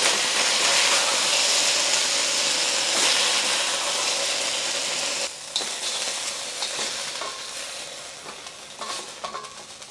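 Chicken pieces sizzling in a hot steel wok while a metal spatula scrapes them out, with a few small scrapes and clinks. The sizzle is strong for about five seconds, then drops off and keeps fading as the wok empties.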